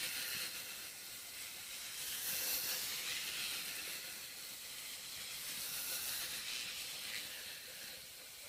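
A steady, low-level high hiss with no distinct sounds standing out of it.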